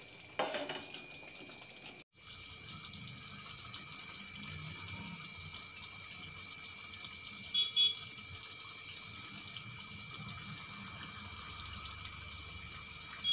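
A metal spatula clinks and scrapes in a pan of thick curry. After a short break comes a steady rushing noise like water from a tap, with a couple of short high chirps near the middle.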